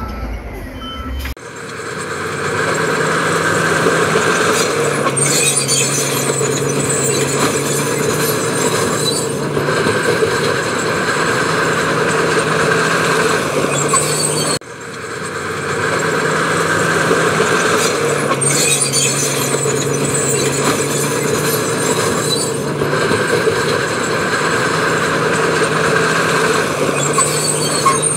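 Heavy construction machinery running, its engine tone stepping up and down. The sound changes abruptly about a second in, breaks off sharply about halfway through, and the same stretch of machine noise then plays again.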